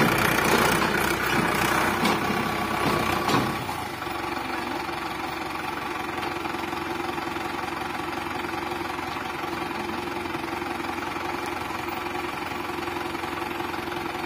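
Mahindra Arjun Ultra-1 555 tractor's diesel engine running louder for the first few seconds, then settling about four seconds in to a steady idle.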